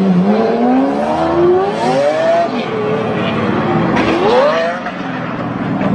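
Sports car engines accelerating hard, the pitch sweeping upward twice with a drop in between, then settling into a steady drone near the end.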